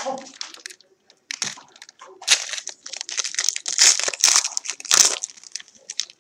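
Plastic wrapper of a 2016 Panini Absolute football card pack crinkling and tearing as it is opened by hand, in a run of crackly rustles that is loudest in the middle.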